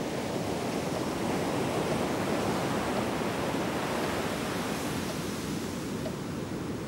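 A steady, even rushing noise that swells slightly in the middle and eases toward the end. Faint ticks of a wall clock come about once a second in the second half.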